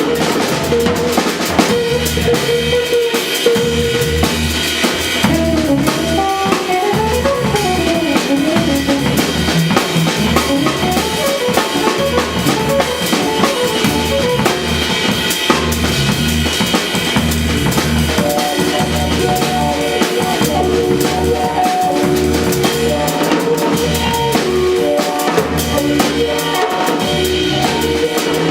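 A jazz trio playing, with the drum kit prominent over regular bass notes and a melody line that moves up and down in pitch.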